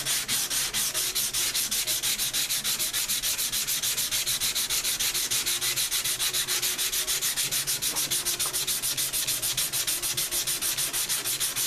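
120-grit sandpaper on a foam sanding block being rubbed by hand over cured polyester glazing putty, a steady rasp in quick, even back-and-forth strokes, several a second. The glaze is being knocked down smoothly without clogging the paper.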